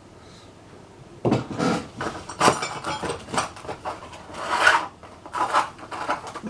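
Steel files and other hand tools clinking and scraping against one another as they are handled and sorted, in irregular strokes starting about a second in, one longer scrape in the middle.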